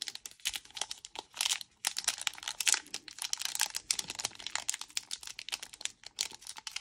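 Foil wrapper of a Pokémon trading card booster pack crinkling and crackling in irregular bursts as fingers work at the top to tear it open.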